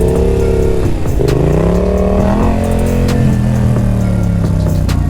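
Yamaha XSR700's 689 cc CP2 parallel-twin engine running under throttle while riding: the revs dip about a second in, climb over the next second and a half, then hold and ease off slightly.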